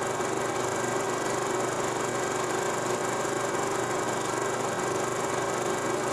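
16 mm film projector running: a steady whir with a fine, rapid mechanical clatter and hiss, unchanging throughout.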